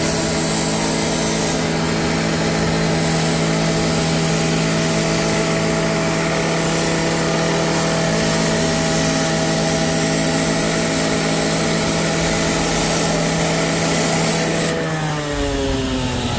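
Gas-powered saw held at high revs while cutting, a steady engine note with a hiss of cutting noise over it. About fifteen seconds in the throttle is let off and the engine note falls away.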